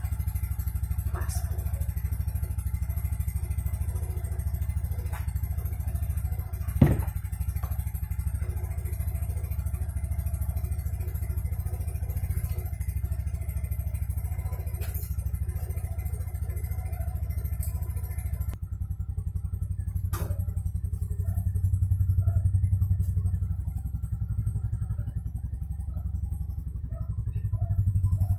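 Yamaha Mio motor scooter's engine idling steadily, with one sharp click about seven seconds in. The engine grows louder twice in the later part, last of all near the end.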